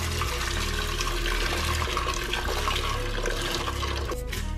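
Water pouring from a kettle into a stainless steel pasta pot with a perforated insert, a steady splashing stream that dies away about four seconds in as the kettle empties.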